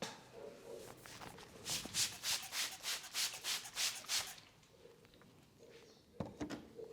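Brisk hand rubbing on skin or hair: a run of quick, even strokes, about four a second, for a couple of seconds, then a few softer rubs near the end.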